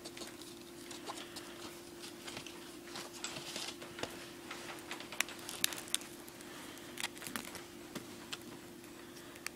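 Scattered small clicks and taps of objects being handled, a few sharper ones in the middle, over a faint steady hum.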